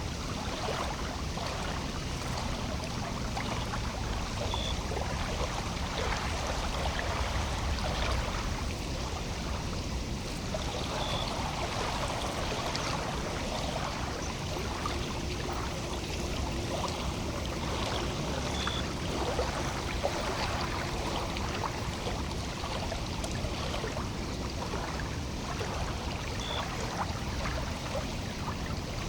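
Lake water lapping and trickling at the shore, a steady wash of small splashes and ticks. A short high peep repeats about every seven seconds, and a faint low hum comes in about halfway through.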